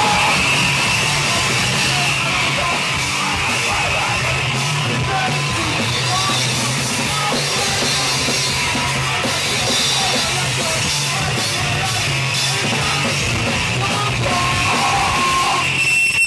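Live punk rock band playing loud: distorted electric guitar, electric bass and a drum kit with cymbals. A steady high tone rings over the band near the end.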